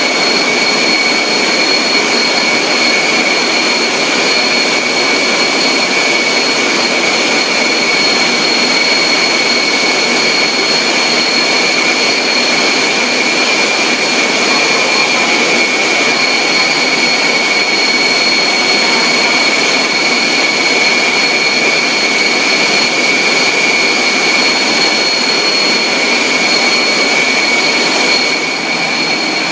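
Factory machinery running: a steady, loud mechanical hiss with a constant high-pitched whine running through it.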